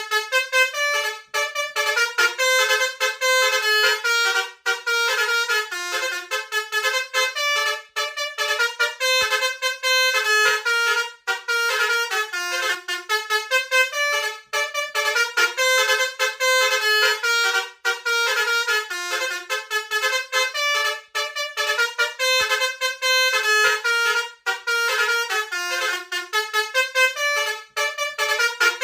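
Indonesian bus "telolet" musical air horn playing a quick tune of short, pitched notes, the phrase repeating over and over without a break.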